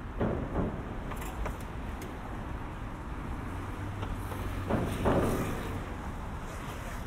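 City street traffic at an intersection: a steady low rumble with cars passing close by, swelling briefly just after the start and more loudly about five seconds in.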